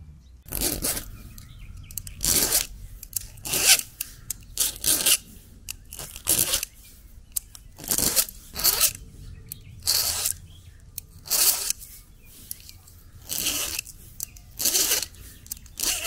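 Round file rasping across the cutters of a chainsaw chain as it is sharpened by hand, in a series of short strokes about one every second or so, slightly uneven. The chain has gone dull and no longer cuts.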